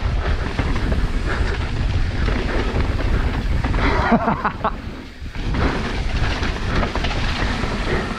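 Wind buffeting the microphone over the rattle and tyre noise of a mountain bike riding fast down a dirt trail, steady throughout with a short dip about five seconds in.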